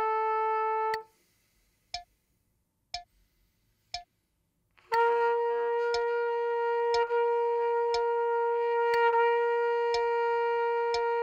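Trumpet playing sustained long tones of a warm-up drill over a metronome clicking once a second. A held note stops about a second in, leaving only clicks for about four beats. A new long tone then comes in near five seconds and is held steadily, with a brief tongued break about two seconds later.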